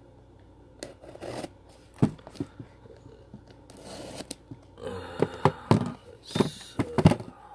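Cardboard shipping box being handled and turned over by hand: scattered knocks and taps, with a few short scraping rubs of hands on cardboard. The sharpest knocks come about two seconds in and near the end.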